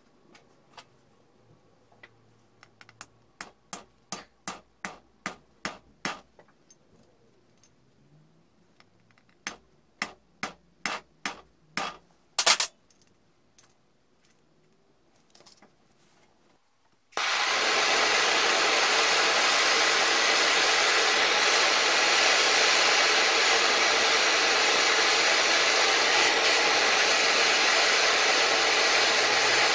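Sharp clicks in two runs of about three a second as small metal vice parts are worked by hand, then, from about 17 seconds in, a handheld gas blowtorch burning with a steady loud hiss.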